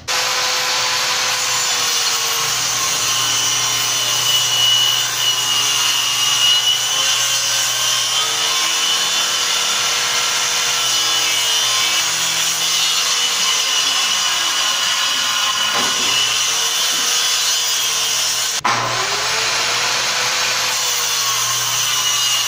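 Circular saw cutting through a sheet of plywood while run along a homemade vertical panel-saw rig. The motor runs steadily under load, its pitch dipping and recovering a few times, with a brief break near the end.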